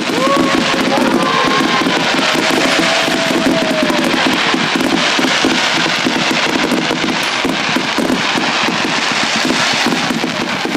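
Fireworks display: a loud, dense, continuous crackle of bursts, with several whistling fireworks sliding in pitch in the first few seconds.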